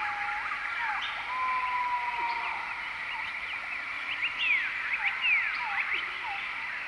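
Forest ambience: many birds giving short whistled calls that slide up and down, with one longer held whistle about a second and a half in, over a steady high chorus of frogs and insects.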